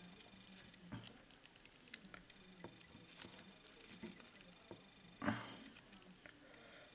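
Faint fly-tying handling noises: small scattered ticks and soft rustles of fingers working tying thread and a green film strip over a hook in the vise, with one louder brief rustle about five seconds in.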